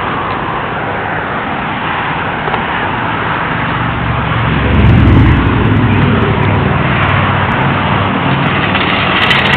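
Highway traffic passing steadily. About halfway through, one vehicle passes close and louder, its low engine drone swelling and then fading.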